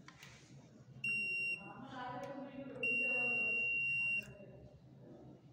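Digital multimeter's continuity buzzer beeping as the test probes touch a heating-element terminal: a short high beep about a second in, then a longer steady one of over a second. The beep signals a closed circuit between the probes.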